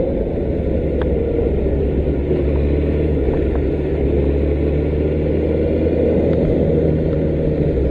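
Motorcycle engine running steadily, a low even hum with road noise over it.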